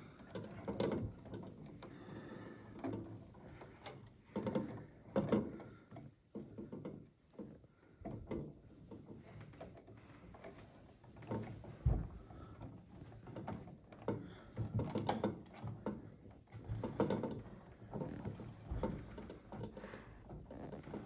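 Bare copper ground wires being handled, twisted together and capped with a plastic wire nut in a wall switch box: irregular clicks, scrapes and rustles, with a single low knock about halfway through.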